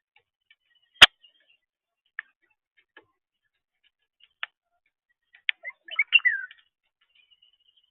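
A blackbird pecking at a bird feeder: sharp, irregular clicks and taps of its bill on the feeder, the loudest about a second in. Around six seconds comes a short burst of chirping calls.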